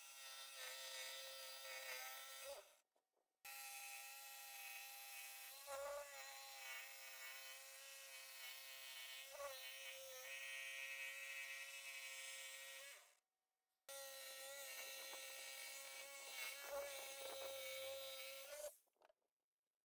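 Jigsaw running as it cuts through a plywood sheet along a curved line. The motor's steady whine dips briefly in pitch a couple of times under the load, and the sound breaks off into silence three times.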